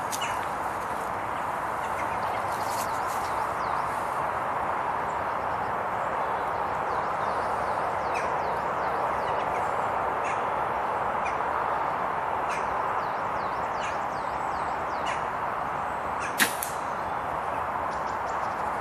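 A single sharp crack from a .25 calibre sub-12 foot-pound Sandwell Field Sports Snipe air rifle being fired, about 16 seconds in. It sounds over a steady background hiss, with small birds chirping on and off throughout.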